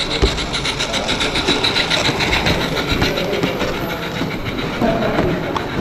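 Live steam model locomotive running on the track with a fast, even beat of several strokes a second.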